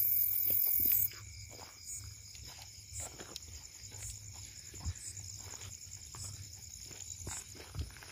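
Irregular footsteps on grass and dry ground, with insects trilling steadily and faintly in the background. A loud high hiss cuts off abruptly about a second in.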